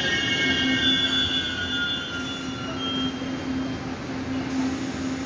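Taiwan Railway passenger coaches rolling slowly to a stop alongside the platform. High brake and wheel squeal dies away about three seconds in, leaving a steady low hum and rumble.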